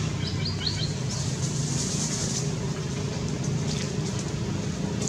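Steady low engine drone, like a motor vehicle idling, with a quick run of about five short high chirps in the first second.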